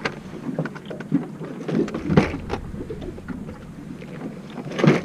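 Irregular clicks, knocks and rustling of fishing tackle being handled while a squid jig is changed, the sharpest knock about two seconds in.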